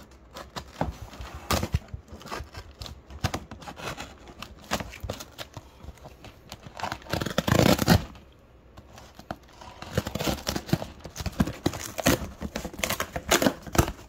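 Cardboard shipping box being handled and opened by hand: irregular scraping, knocking and rustling of cardboard, with a longer, louder tearing sound about seven seconds in.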